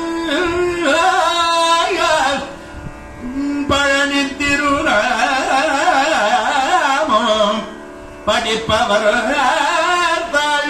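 A man singing a Tamil devotional verse in Carnatic style into a microphone, in long ornamented phrases over a steady drone note. He breaks briefly twice, about two and a half seconds in and again about eight seconds in.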